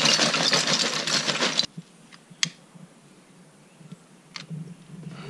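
Lump charcoal clattering as it is poured into a ceramic kamado grill, a dense rattle of many small clicks that cuts off abruptly after about a second and a half. A few faint isolated clicks follow.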